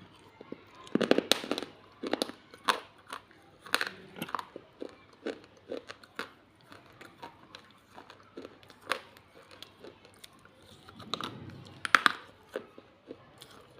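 Close-up biting and chewing of pieces of baked clay pot: a run of sharp, irregular crunches, densest about a second in and again near the end.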